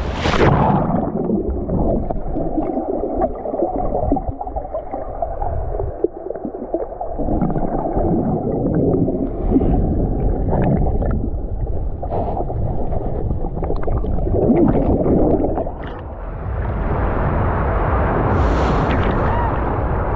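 Sea water heard through a submerged action camera: a muffled, low swishing and churning with scattered light clicks. About sixteen seconds in the sound turns brighter and more open, with a short splash a couple of seconds later.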